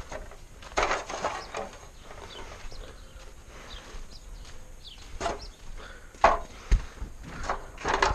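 Irregular knocks and scrapes of something wooden being handled: a short cluster about a second in, two sharp knocks a little after five and six seconds, and more scraping near the end.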